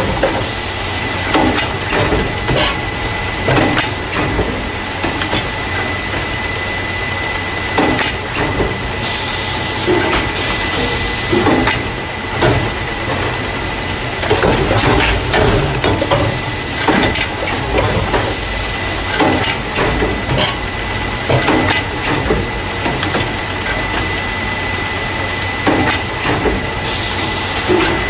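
Carton case packer running, the machine that moves paper cartons of juice or milk into plastic crates: a steady hum and a thin steady whine under a dense run of clanks and knocks. A short rush of hissing comes in now and then.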